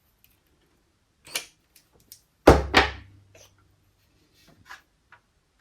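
A few light clicks and a sharp double knock about two and a half seconds in, from the small parts of a motorcycle brake master cylinder being handled and worked loose by hand.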